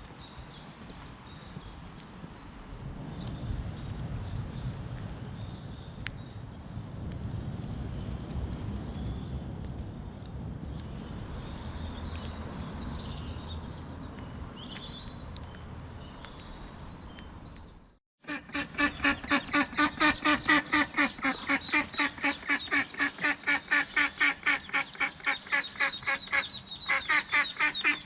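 A duck quacking in a rapid, regular series, about three quacks a second, which follows a sudden cut about two thirds of the way in. It is a mother duck calling to her brood of ducklings. Before the cut there is only a low rumble with faint bird chirps.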